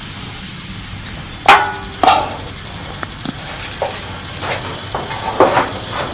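A sharp plastic click about one and a half seconds in, a second knock half a second later, then a few faint taps: a washer lid switch and its wire plug being handled and fitted.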